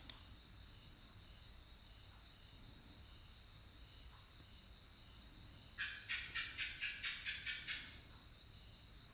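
Computer keyboard typing: a quick run of about nine keystrokes, four or five a second, starting about six seconds in, as a password is typed again to confirm it. A single mouse click sounds right at the start, and a steady high-pitched drone runs underneath.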